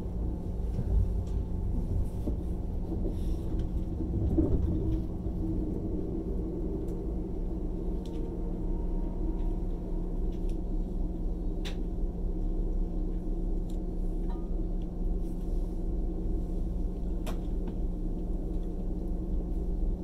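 Running noise of an ICE high-speed train heard from inside the passenger coach: a steady low rumble with a constant hum, broken by a few faint sharp clicks.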